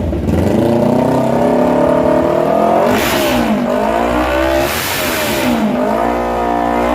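Kawasaki Z400's parallel-twin engine revved through a loud aftermarket double exhaust: the revs climb steadily for about three seconds, drop, and are run up twice more. Described as noisy.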